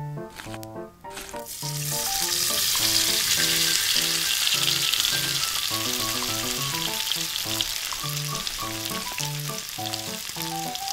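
Battered chicken drumsticks going into hot oil in a miniature wok, the oil sizzling and bubbling hard as they deep-fry, starting about a second in and loudest shortly after. A light background melody of short plucked notes plays throughout.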